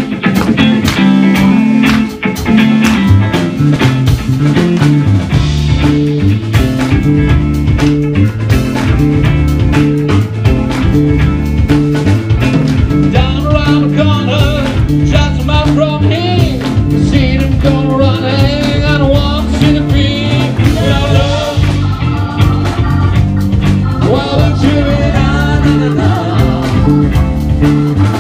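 Live band playing a blues-rock song: electric guitar, bass guitar, drums and keyboard, loud and steady, with singing coming in about halfway.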